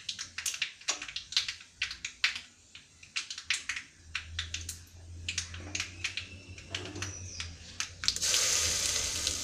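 Steel spoon stirring and scraping cooked green gram in an aluminium pressure cooker, with quick sharp clicks against the pot. About eight seconds in, a hot coconut-oil tempering of mustard seeds, dried red chilli and curry leaves is poured in and sizzles loudly.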